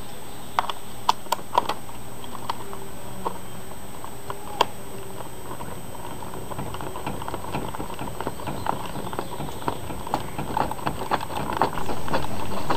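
Hand crank winding the spring motor of a 1920 English miniature gramophone: the motor's ratchet clicks, a few scattered clicks at first, then quick, dense clicking in the second half that jumps louder near the end.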